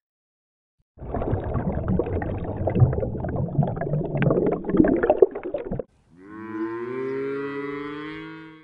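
Dolphins clicking and crackling underwater for about five seconds, stopping abruptly, then several cows mooing at once in overlapping low calls.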